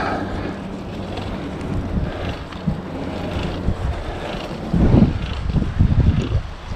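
Wind buffeting the microphone while riding a bicycle, a steady low rumble with stronger gusts about five seconds in.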